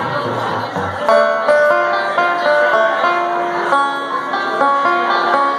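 Live bluegrass band playing: banjo picking quick runs of notes over strummed acoustic guitars and electric bass.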